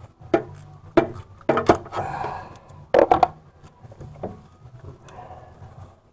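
Hand tools knocking and clinking against engine parts while reaching for bolts in an engine bay: several sharp knocks in the first half, the loudest about three seconds in, then quieter handling sounds.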